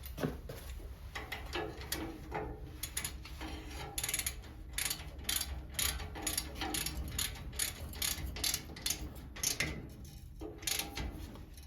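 Hand ratchet wrench clicking in repeated runs as bolts holding the tiller blades on the rotor are worked.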